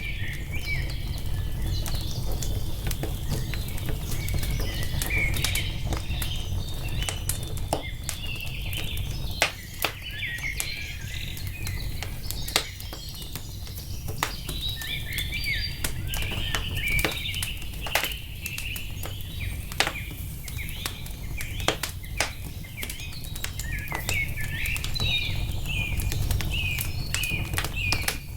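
Wood fire crackling, with scattered sharp pops, a few of them louder, over a steady low rumble. Small birds chirp in quick, continuous twitters throughout.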